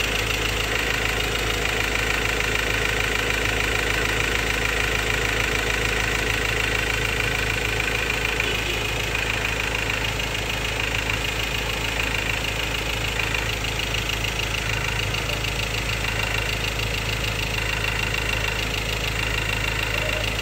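Ford Ranger 2.2 Duratorq four-cylinder turbodiesel idling steadily with a rattling knock, which the owner suspects is fuel knock from clogging fuel injectors.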